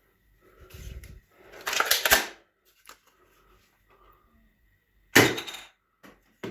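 Toy gun that fires soft bullets being worked: a rattling, noisy stretch around two seconds in, a few small clicks, and a sudden loud pop about five seconds in that dies away quickly.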